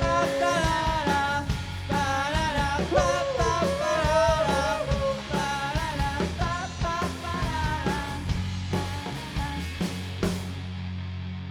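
Live rock band playing: a wavering lead melody over drums and bass. About ten seconds in a final hit lands and only a low chord is left ringing.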